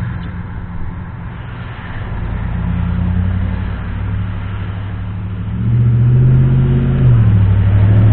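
Dodge Ram pickup's engine and exhaust running loud with a deep low drone while driving. It grows louder about five and a half seconds in as the truck accelerates.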